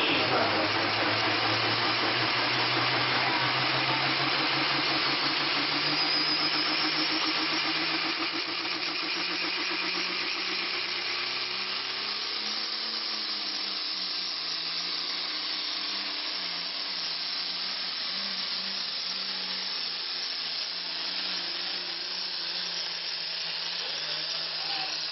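Turbocharged diesel engine of a John Deere pulling tractor running flat out under load as it drags a weight-transfer sled. Its pitch climbs slowly over the first several seconds, then holds higher and wavers for the rest of the pull.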